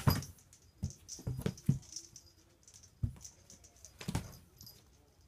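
A kitten batting and pouncing on a small toy: irregular knocks, taps and light scratches, with the loudest knocks near the start and about four seconds in.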